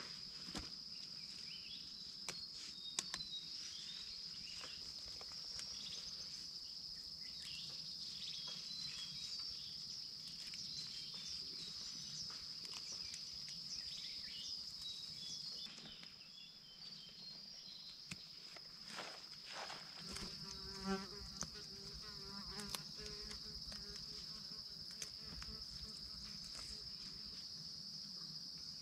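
A steady, high-pitched insect chorus, with scattered rustles and snaps of lettuce leaves being picked by hand.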